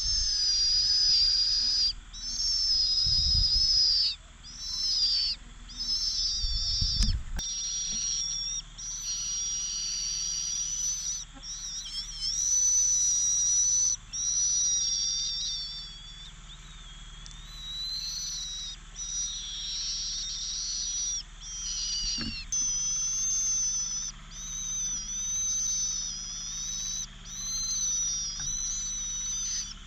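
Cuckoo chick begging: a high-pitched, continuous wheezing trill repeated in runs of a second or two with short breaks, calling insistently for food. A couple of low thumps come about 3 and 7 seconds in.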